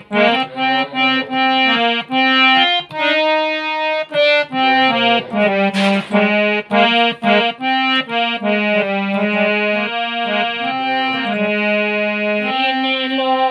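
Harmonium playing a bhajan melody without singing: quick runs of short reedy notes over held lower notes.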